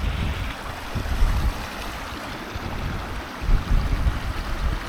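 Gusts of wind buffeting the microphone in uneven rumbles, loudest about a second in and again past three seconds, over the steady rush of a stream.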